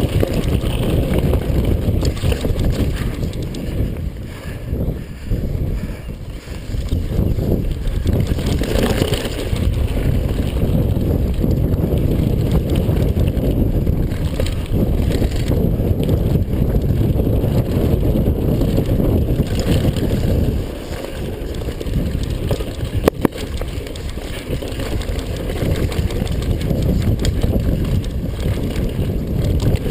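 Steady low rumble of wind buffeting and trail noise from a mountain bike descending a rough trail, with one sharp knock about 23 seconds in.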